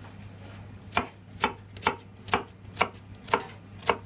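Kitchen knife slicing through a peeled onion onto a plastic cutting board: seven sharp knocks, about two a second, starting about a second in.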